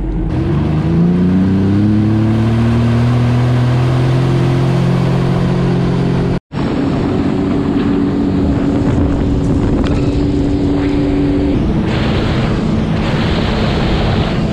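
Jet ski engine speeding up over the first couple of seconds, then running steadily at cruising speed under loud rushing wind and water noise. The sound cuts out for a split second about six seconds in, then the engine goes on steadily, its pitch shifting slightly near the end.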